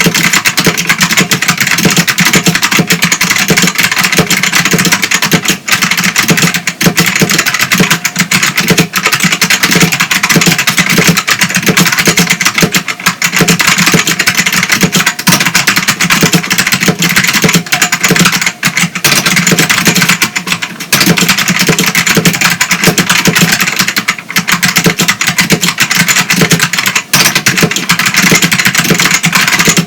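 Ducky DK1087-N mechanical keyboard with green Alps switches (Ducky XM) being typed on quickly and continuously, a dense run of key clicks with no real pauses.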